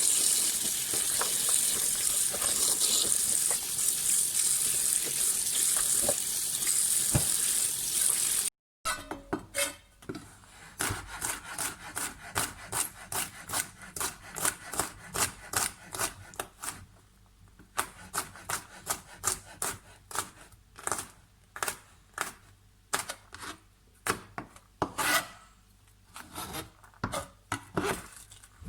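Water running steadily from a kitchen tap, then a knife chopping on a wooden cutting board in quick, even strokes, about two to three a second, with a couple of short pauses.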